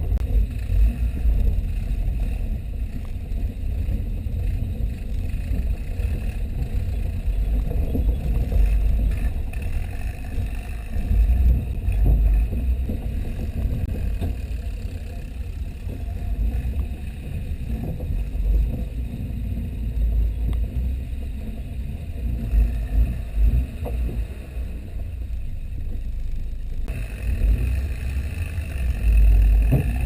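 Old Jeep driving along a rough dirt trail, picked up by a camera on its hood: a steady, uneven low rumble of engine and road, with occasional jolts from the bumps. A higher hum joins in near the end.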